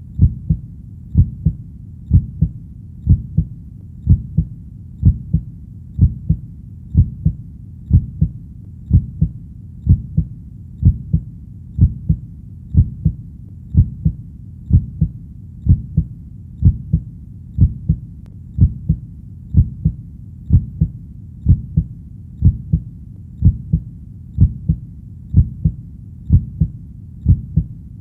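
Heartbeat in a steady rhythm of about one beat a second, each beat a double low thump (lub-dub).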